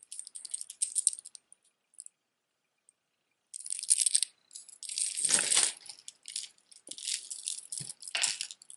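Costume jewelry being handled: gold-tone metal chains and beads jingling and clicking against each other. There are two spells of rattling with a quiet gap of about two seconds between them, and the fullest rattle comes about five seconds in.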